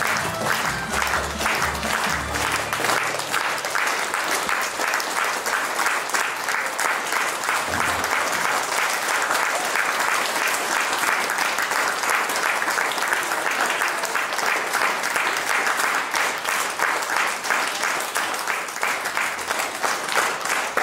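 Music for a folk dance ending about three seconds in, with an audience clapping over it and then applauding steadily after the dance.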